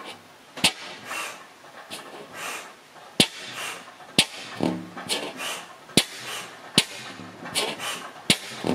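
1910 Crossley hit-and-miss engine firing: a sharp exhaust bang every one to three seconds at uneven gaps, with softer puffs between while it coasts on its flywheels without firing.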